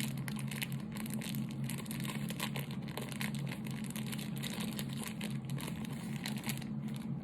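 Crinkling and crackling of plastic packaging being worked open by hand: a dense run of small, rapid crackles. A steady low hum lies underneath.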